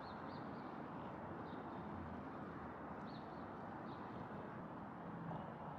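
Steady outdoor rushing background with a few short, high bird chirps scattered through it.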